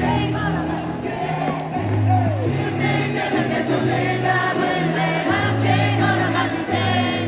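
Live pop concert music over the arena sound system, with many voices singing along and crowd noise beneath.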